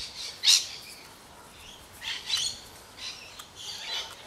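Yarn being pulled through the wound threads of a flower loom: a few short swishes of yarn sliding against yarn, the loudest about half a second in.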